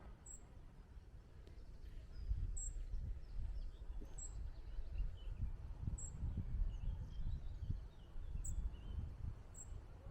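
Outdoor ambience of wind gusting on the microphone, with faint bird chirps and short high calls every second or two.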